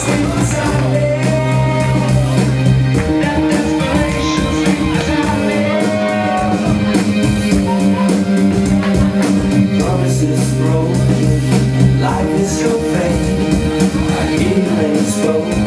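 Music with a vocal melody over guitar and a steady bass line, played loud over the hall's speakers.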